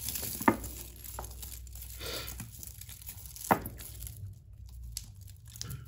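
A tangle of costume jewellery being rummaged through by hand: beads and metal chains rustling and clinking against each other, with two sharper clacks about half a second and three and a half seconds in.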